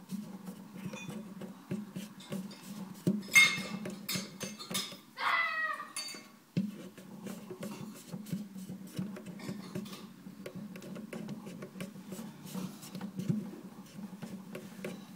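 Fingers pushing through and rubbing the rubber splash guard in a garbage disposal's stainless sink flange, with scattered small clicks and taps against the metal over a low steady hum. A louder brief scrape comes about three and a half seconds in, and a short falling squeak about five seconds in.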